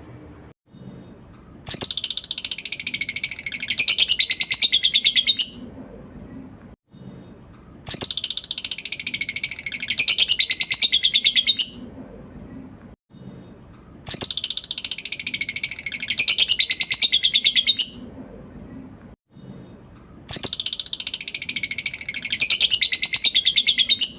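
Lovebird 'ngekek' song: a long, rapid, high-pitched chattering trill, repeated as four bursts of about four seconds each with about two-second gaps, each burst growing louder partway through.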